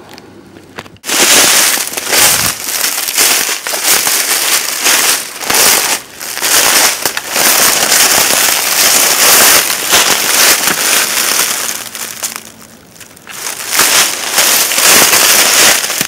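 Footsteps crunching and crackling through thick dry fallen leaves, loud and close, starting about a second in, with a short lull a few seconds before the end.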